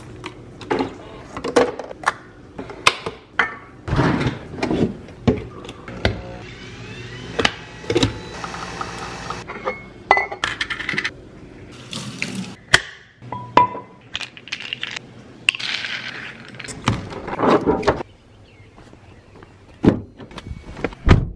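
A string of short everyday kitchen sounds: Nespresso Vertuo-style coffee capsules clinking as they are taken from a glass holder, then a pod coffee machine running with a hiss as it brews into a mug. Near the end a car door handle clicks as it is pulled. Many separate clicks and knocks sit over light music.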